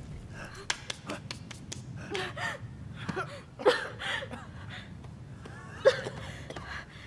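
A man's gasps and strained grunts in short breathy bursts, with scattered light clicks and knocks between them.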